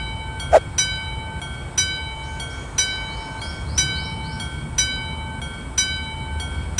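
Railway level-crossing warning bell ringing about once a second, each strike ringing on until the next, over a steady low rumble of a train.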